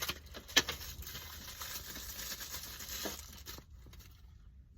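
Packaging being torn and rustled open by hand: a couple of sharp clicks, then about three seconds of rustling and tearing that fades out.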